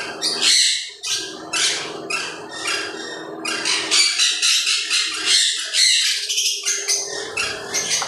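Many caged conures chirping and squawking over one another in quick, high-pitched bursts, several a second, over a steady low hum.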